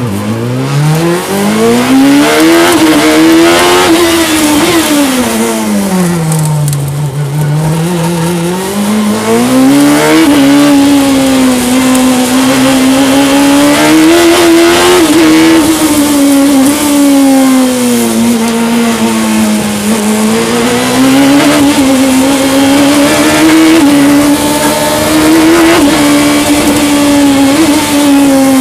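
Fisher Fury sports racer's engine driven hard on a sprint run, heard from its open cockpit. The revs climb steeply and drop low about six seconds in, then climb again and rise and fall over and over as the car is driven through the gears and corners.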